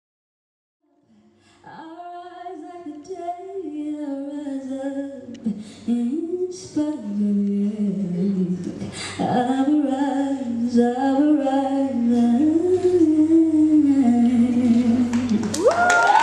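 A woman singing a slow solo melody that slides between notes, starting after about a second and a half of silence.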